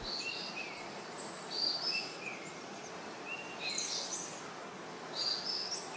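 A small bird chirping several times in short high calls over a steady faint hiss.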